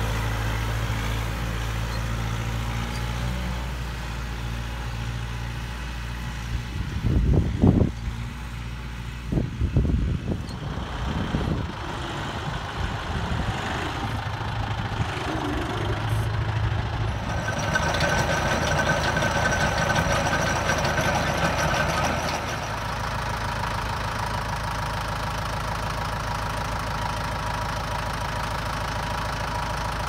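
Kubota tractor's diesel engine running steadily. About seven to eleven seconds in come several loud knocks and rattles, and a higher whine joins the engine for about five seconds in the middle.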